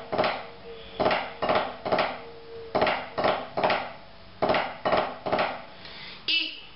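Drumsticks on a practice pad playing drags: accented eighth notes, each led by a double grace-note stroke, in three groups of three ('drac, drac, drac') at a steady tempo.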